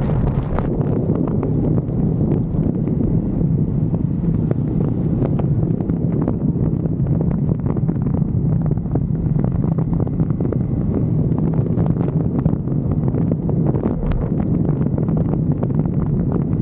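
Honda ADV 160 scooter's single-cylinder engine, remapped and CVT-tuned, holding a steady high-speed drone under heavy wind noise on the microphone.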